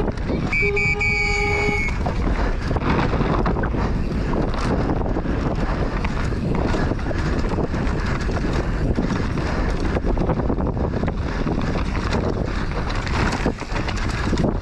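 Wind rushing over the camera microphone and the constant rattle and crunch of a downhill mountain bike ridden fast over a dry dirt trail, tyres on loose dirt and the bike clattering over bumps. About half a second in, a brief held tone from trackside; a short lull about a second before the end.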